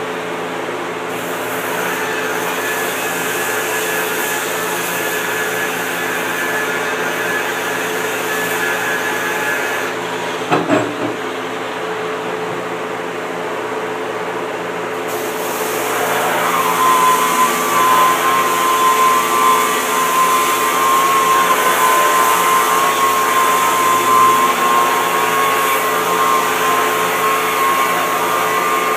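Electric rotary sander with a foam backing pad whining steadily over a constant machine hum. There is a single knock about a third of the way in. From about halfway the whine settles lower in pitch and grows louder as the pad sands the surfboard's glassed surface.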